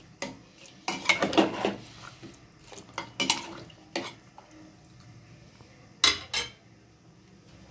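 A spoon clinking and scraping against a bowl in irregular clusters as a spice mixture is mashed and stirred, with two sharp clinks about six seconds in.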